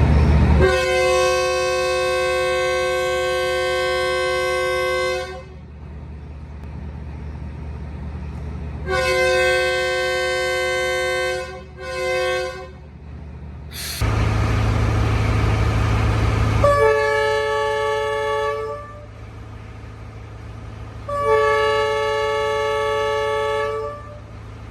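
Locomotive air horns sounding multi-note chords: one long blast, then a longer blast and a short one. Then a train's low rumble, and two blasts from a differently pitched horn.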